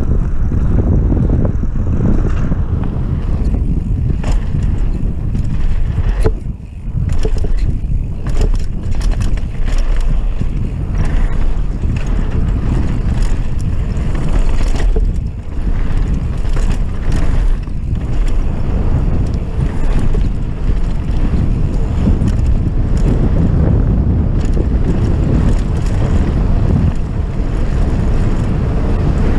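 Wind buffeting the camera microphone over the rumble of knobby mountain-bike tyres rolling fast on a dirt and gravel trail, with frequent clicks and rattles from the bike over bumps.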